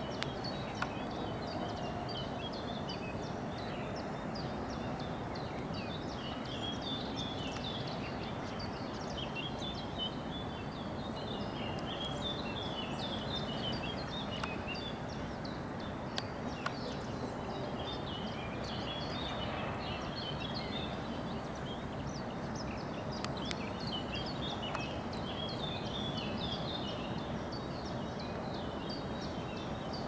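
Small birds chirping and twittering over a steady background hum of outdoor noise, with a few faint clicks.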